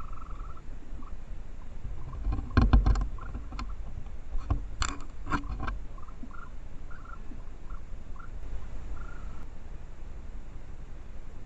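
Raccoons foraging in a shallow stream close to a trail camera: a cluster of sharp knocks and splashes about two and a half seconds in, the loudest part, and another around five seconds, with short faint chirps repeating in the background.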